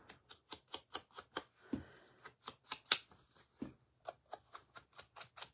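Quick, rhythmic dabbing strokes of a small ink applicator against the edge of a cardstock panel, about five a second, as ink is worked around the border. A few soft thumps come in among the strokes.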